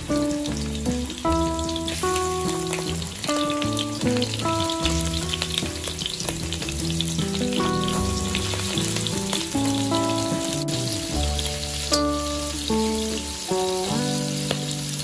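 Shrimp sizzling and crackling as they fry in hot oil in a wok. A background melody of short notes plays over the sizzle.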